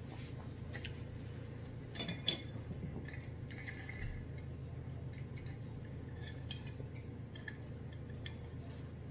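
Glass mason jar of iced tea being picked up and drunk from through a straw: a couple of sharp clinks of ice and glass about two seconds in, then small scattered clicks, over a steady low room hum.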